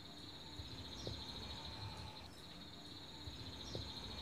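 Insects chirring outdoors: a faint, steady, high-pitched dense trill.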